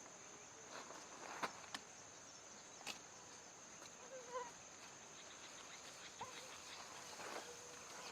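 Quiet outdoor ambience: a steady high-pitched insect drone, with scattered faint rustling clicks and two short faint animal calls, about four and six seconds in.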